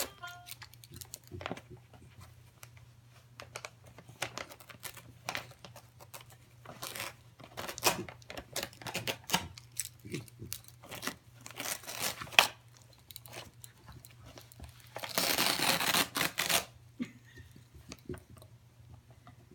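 A Pembroke Welsh Corgi tearing wrapping paper off a gift box with its mouth: scattered crinkles and short rips. Late on there is one longer, louder tear of about a second and a half.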